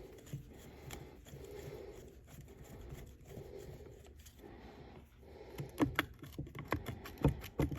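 Small clicks and taps from handling the metal parts and screws of a Rockwell grinder being taken apart: quiet at first, then a quick run of sharp clicks in the last couple of seconds.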